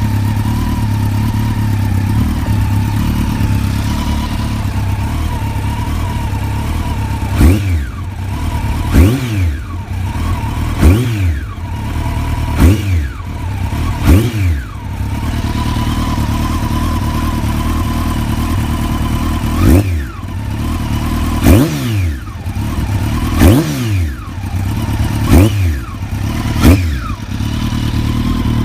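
Kawasaki ZX-12R's inline-four engine, breathing through an ARATA exhaust with an Akrapovič silencer, idling steadily. It is blipped to a sharp rev about ten times in two sets of five, each rev shooting up and dropping back to idle within about a second.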